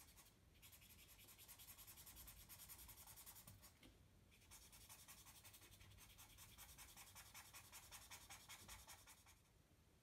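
Faint, rapid back-and-forth scratching of a felt-tip pen colouring in a small piece of card, with a short pause about four seconds in, stopping just before the end.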